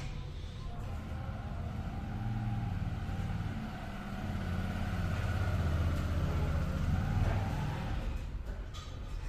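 A low engine rumble that swells louder over the middle and eases off near the end.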